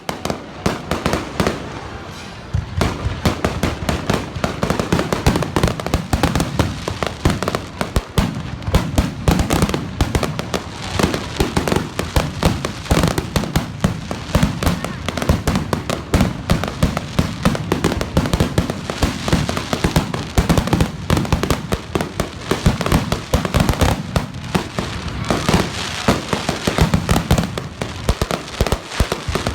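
Fireworks going off in a dense barrage of sharp bangs and crackles, many a second without letup, with a heavier low booming filling in a couple of seconds in.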